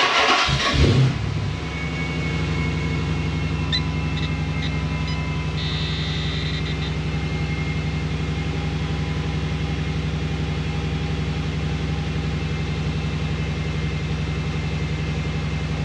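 2006 Chrysler 300C SRT8's 6.1-litre Hemi V8 starting from cold, flaring for about the first second and a half, then idling steadily. After the ECU reset the idle settles about where it's supposed to sit.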